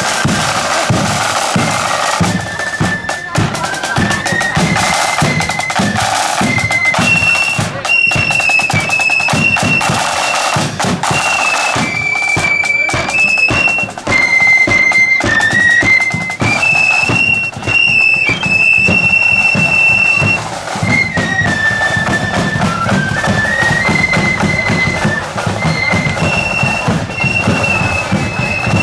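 Marching flute band playing a tune: a single high flute melody in steady held notes over a regular beat of drums.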